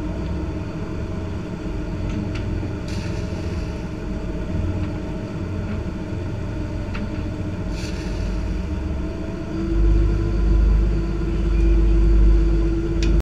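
Lobster boat's inboard engine running steadily underway. About ten seconds in the throttle comes up and the drone gets louder and deeper. Two short hisses come a few seconds apart.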